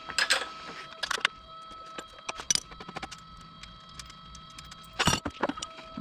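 Metal clinks and clanks of hand tools and fork-mount hardware being handled, in a few scattered sharp strikes with the strongest about a second in and about five seconds in, over a faint steady high-pitched tone.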